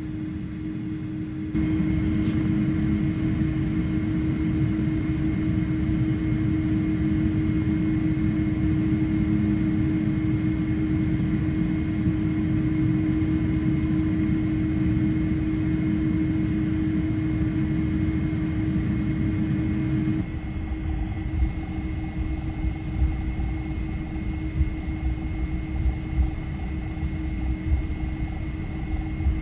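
Jet airliner taxiing: a steady engine drone and rumble with a constant hum tone. The noise steps up about a second and a half in and drops back about twenty seconds in, after which irregular low thumps come through.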